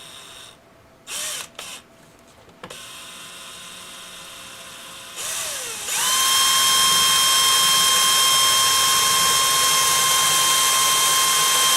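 Electric drill worked in short trigger blips, then running steadily at speed from about six seconds in, drilling the hole for a rocket's forward rail button through the airframe.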